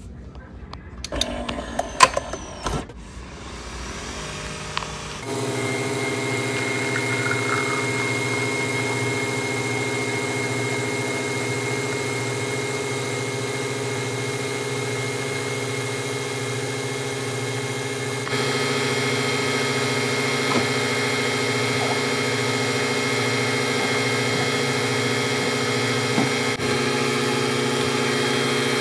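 Nespresso Vertuo coffee machine: a few clicks and knocks as the capsule goes in and the head is closed, then, about five seconds in, a steady mechanical hum as the machine spins the capsule and brews coffee into the mug. The hum gets a little louder about eighteen seconds in.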